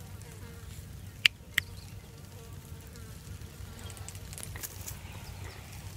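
Faint, steady insect buzz with a thin hum, with two sharp clicks close together just over a second in.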